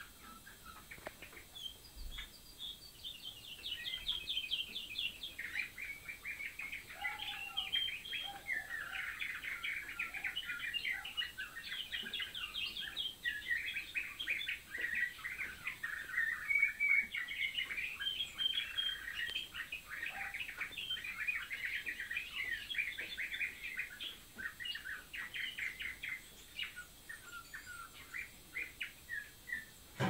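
Canary singing a long, continuous song of rapid trills and warbled phrases that breaks off just before the end.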